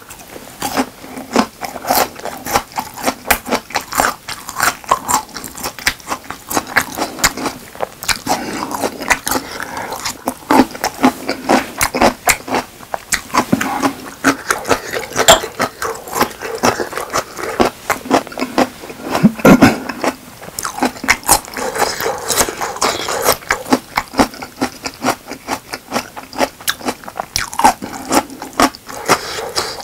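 Close-miked eating of Chungmu gimbap and spicy squid: continuous chewing, a dense run of quick mouth clicks and bites, loudest about twenty seconds in.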